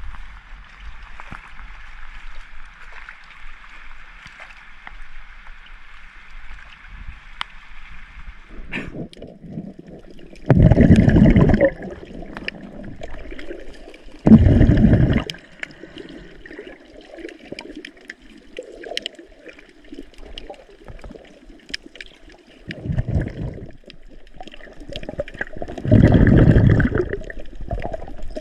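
Water trickling and gurgling around a camera at the water's surface, then, about nine seconds in, the duller, muffled sound of the camera under water, broken by four loud rushing bursts of about a second each.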